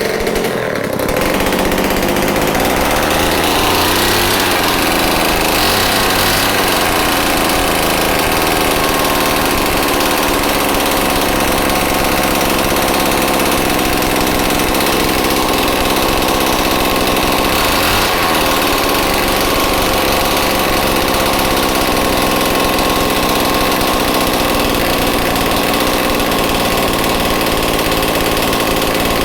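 Homelite XL-12 two-stroke chainsaw engine running steadily after a cold start, with no revving.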